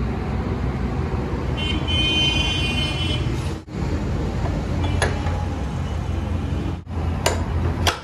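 Steady traffic rumble, with a vehicle horn honking for about a second and a half starting near the 1.5-second mark, and a few sharp clicks in the second half.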